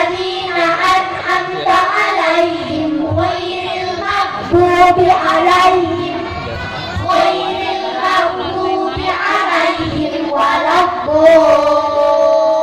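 A group of children singing together in unison into microphones, amplified over a PA system, in long held phrases with short breaks between them.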